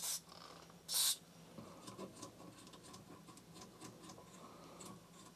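Two short hisses of an aerosol can of Deoxit fader lube sprayed into a scratchy potentiometer, one at the start and one about a second in, then faint small clicks and scratches.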